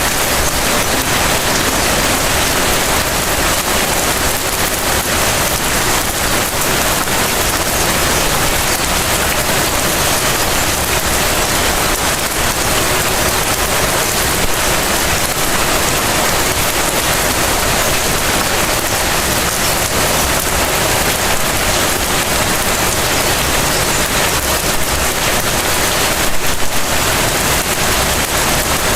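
Steady light rain falling and pattering on surfaces, an even hiss without a break, with a slightly louder moment near the end.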